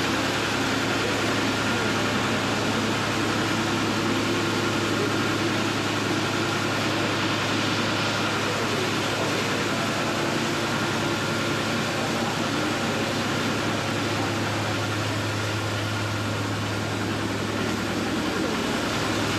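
An engine-driven machine running steadily at constant speed: a low hum with a faint, steady high whine above it.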